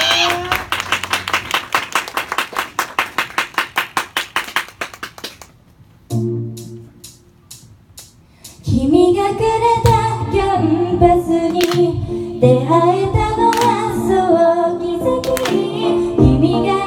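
Quick, even clapping fades out over the first five seconds. After a short quieter stretch with a low steady tone, a pop song starts about nine seconds in, with a woman singing into a microphone over the music.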